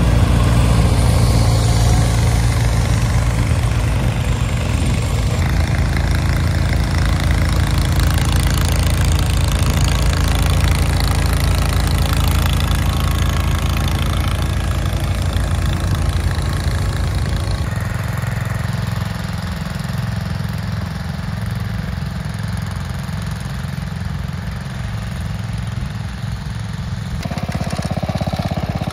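Garden tractor engine running steadily. About two-thirds of the way through, the sound shifts abruptly and becomes lower and duller.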